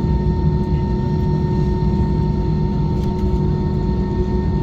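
Steady low rumble and hum inside the cabin of an Airbus A320 parked at the stand, with a constant whine over it.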